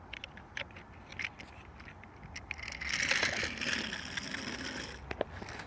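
Scattered light clicks of small plastic toy vehicles being handled and fitted together. A steady rushing noise runs for about two and a half seconds in the middle.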